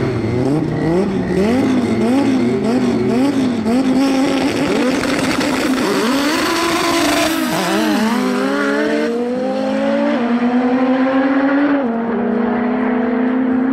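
Two drag-racing car engines revved hard at the start line, the pitch bouncing up and down about twice a second. A little past halfway they launch, and the engines climb steadily in pitch with two sudden drops as they shift up.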